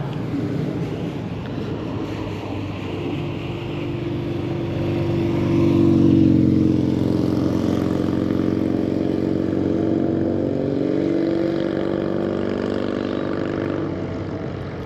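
A motor vehicle's engine running, swelling to its loudest about six seconds in and then holding steady before easing off slightly near the end.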